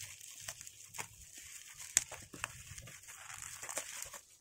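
Bubble-wrap plastic crinkling and rustling as it is pulled off a boxed pen stand, a crackle of small clicks with one sharp crack about two seconds in.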